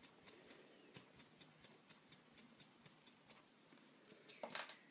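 Near silence with faint, regular ticking, about four ticks a second; a brief louder sound near the end.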